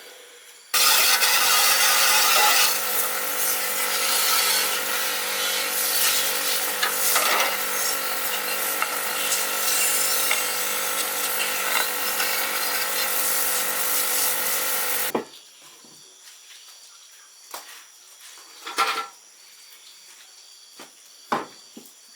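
A motor-driven machine running steadily with a rasping, noisy sound, starting just under a second in and cutting off suddenly about fifteen seconds in. A few light knocks and clicks follow.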